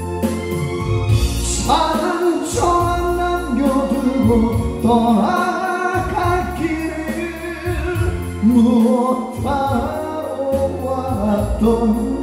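A man singing live into a microphone, accompanied by acoustic guitar and upright bass.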